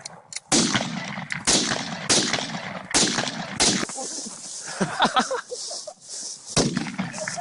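A gun fired in quick succession: five shots less than a second apart, then a pause of nearly three seconds and one more shot near the end.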